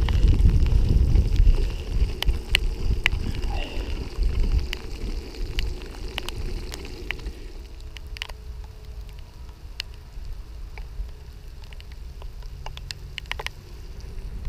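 Wind buffeting a bicycle-mounted camera's microphone while riding in rain, with sharp raindrop ticks on the camera. About seven or eight seconds in, the wind noise drops away, leaving a quieter rain hiss and scattered drop ticks.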